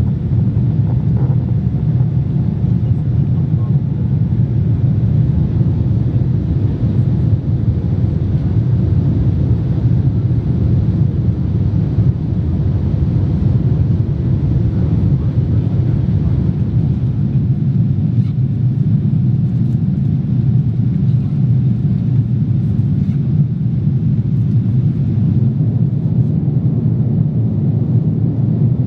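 Steady low rumble inside a Boeing 787-10's cabin during the climb after takeoff: engine and airflow noise heard from a window seat.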